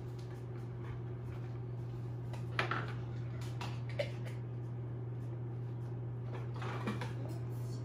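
Room tone: a steady low hum with a few faint knocks, about three in all.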